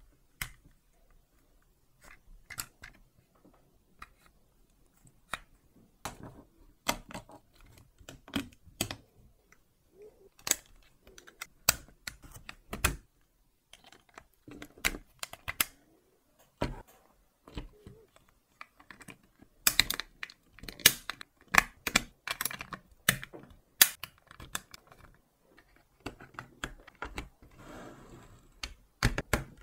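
Lego Technic plastic parts snapped and pressed together by hand: irregular sharp clicks and taps as pins, beams and wheel hubs go into place, with a denser run of louder clicks partway through.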